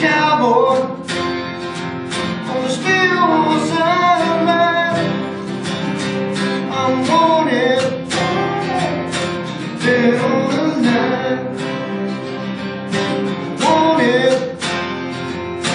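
Two acoustic guitars strummed and picked together, with a man singing over them.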